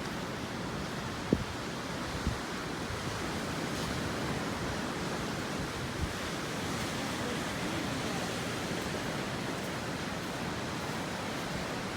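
Ocean surf washing steadily onto a rocky shore, with one sharp knock about a second in.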